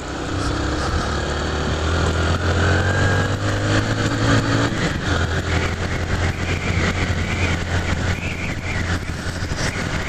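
Single-cylinder four-stroke engine of a Honda CG 150 Fan motorcycle running steadily under way, heard from the bike with wind noise over the microphone. It gets louder in the first second or two as the bike pulls away up a curving climb.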